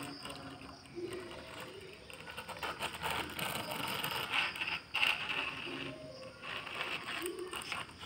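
Plastic toy dump truck rolling over a concrete floor, its wheels and body rattling and scraping in an irregular clatter that grows louder about three seconds in.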